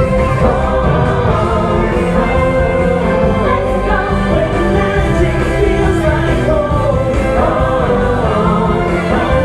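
Stage-show music with a group of voices singing together, played loud and steady over a full band backing.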